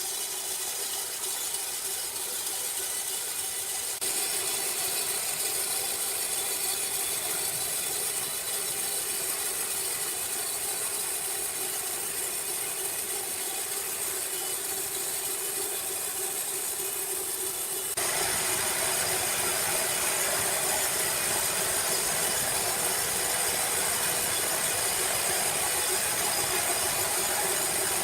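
Sawmill machinery running steadily with a constant hum and a mechanical clatter. The sound changes abruptly about four seconds in and again about two-thirds of the way through.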